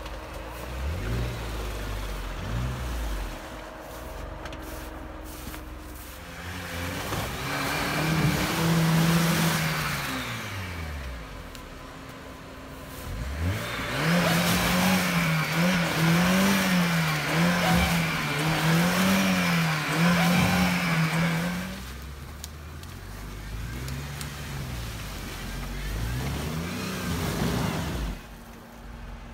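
Off-road 4x4 engines revving hard while stuck in snowy mud, the pitch gliding up and down: a Jeep Wrangler Rubicon, then about halfway through a Lada Niva whose engine revs up and down over and over for several seconds as its wheels spin in the mud.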